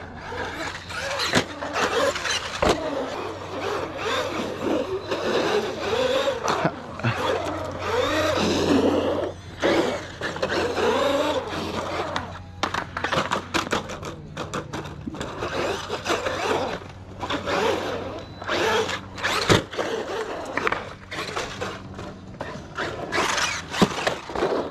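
Electric RC monster truck's motor whining up and down as it is throttled around a concrete skatepark bowl, with tyre noise and occasional sharp knocks from landings and hits.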